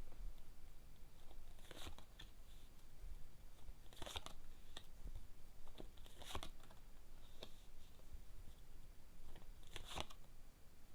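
Fortune-telling cards being handled and laid out: four crisp snaps a couple of seconds apart, with faint rustling and ticks between them.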